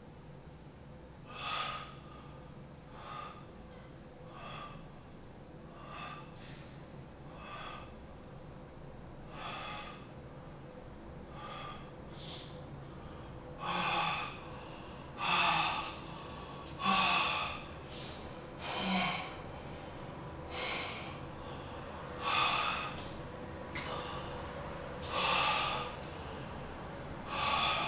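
A man breathing heavily and unevenly, about one loud breath every second and a half, the breaths growing stronger from halfway through. It is the distressed breathing of someone trying to calm himself while feeling sick and shaky.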